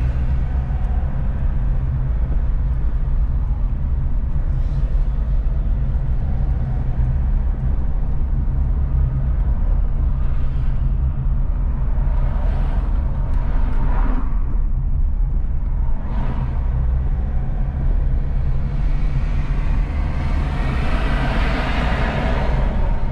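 Steady low drone of a car driving at highway speed, engine and tyre noise together, with passing traffic swelling up and fading several times, the longest pass in the last few seconds.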